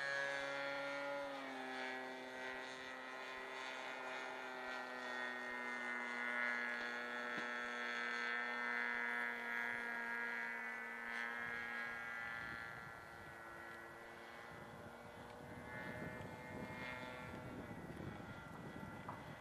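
Radio-controlled model airplane's motor droning steadily as it flies overhead, dropping slightly in pitch about a second and a half in and fading later on into a rushing noise.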